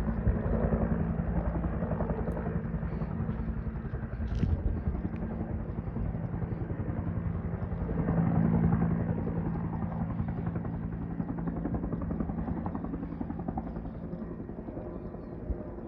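Firefighting helicopter's rotor chop: a rapid, even thudding over a steady low drone, swelling louder about halfway through.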